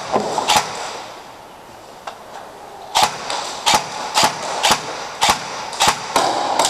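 Airsoft gun firing single shots, one early and then a string of about seven, roughly two a second, each a sharp crack with a short echo.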